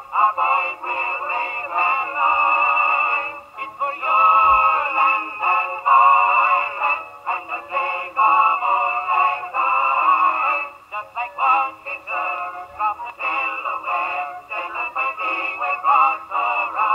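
A Victor 78 rpm record playing on a 1921 wind-up Victrola acoustic phonograph: music with singing. It sounds thin and has no bass, as acoustic reproduction does.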